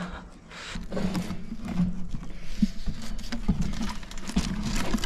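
Men grunting and straining as they haul a heavy, mud-caked metal safe up over the edge of a steel platform, with a few knocks and scrapes of the metal box.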